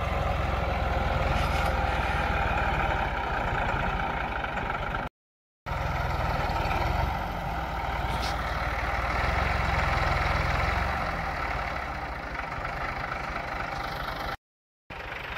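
Massey Ferguson 260 tractor's three-cylinder diesel engine running steadily under load while pulling a tine cultivator through ploughed soil. The engine has freshly fitted piston rings and cylinder sleeves. The sound breaks off twice in short silent gaps.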